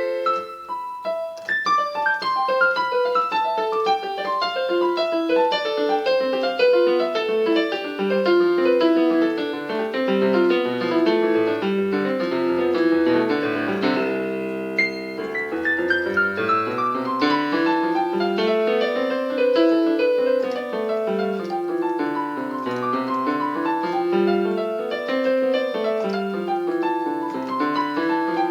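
Solo piano playing fast flowing arpeggios and runs. About halfway through it holds a chord briefly, then goes on with rolling figures that rise and fall.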